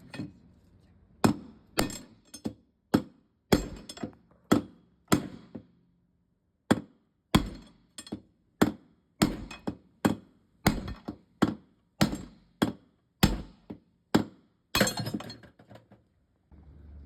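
Hammer blows driving the rusted drum bearing out of a washing machine, steady strikes a little under two a second with a short pause partway, then a quick flurry of hits near the end. The rusted bearing is what made the machine noisy.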